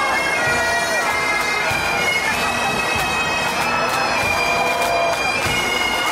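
Bagpipes playing a tune, the melody stepping from note to note over steady held drone tones.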